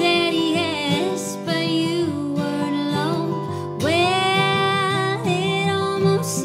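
A woman singing with two acoustic guitars accompanying her, with a long held note starting about four seconds in.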